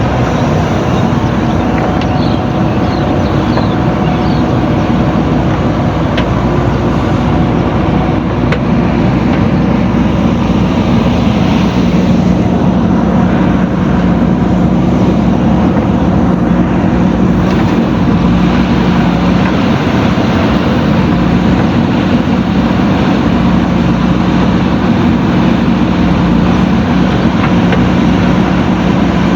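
Diesel engine of a JCB backhoe loader running steadily while it works, the engine note getting a little stronger about twelve seconds in, with a few faint clicks.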